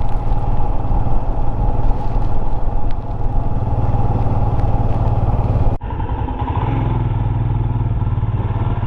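Royal Enfield Himalayan's single-cylinder engine running steadily while riding along, heard over rushing noise. About six seconds in the sound cuts abruptly and carries on duller.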